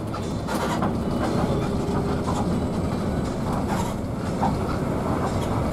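Steady engine and road rumble inside the cabin of a moving bus, with scattered short rattles and clicks.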